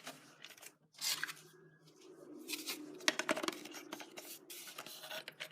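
Toy packaging being handled and opened by hand: a string of short scraping and tearing noises, one about a second in and a denser run in the second half.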